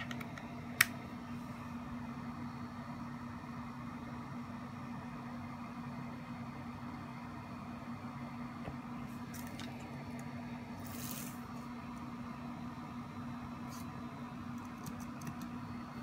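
One sharp click about a second in, a MacBook Pro's MagSafe power connector snapping onto its port, over a steady low hum; a few faint handling ticks and a short rustle follow later.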